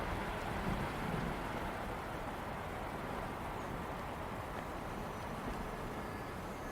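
Steady wind blowing across open ground, a little stronger in the first second, then an even rushing.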